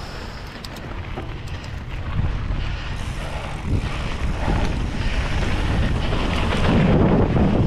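Wind buffeting a GoPro microphone on a moving mountain bike, over a low rumble of tyres on a dirt trail. It grows steadily louder, loudest near the end.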